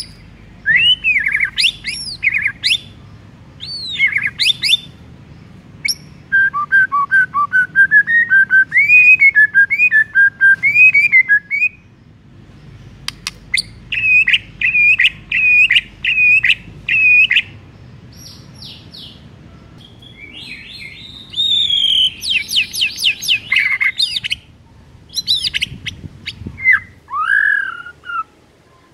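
White-rumped shama singing a loud, varied song of phrases broken by short pauses: clear whistles that sweep up and down, fast runs of notes, and a series of six evenly spaced repeated notes about halfway through.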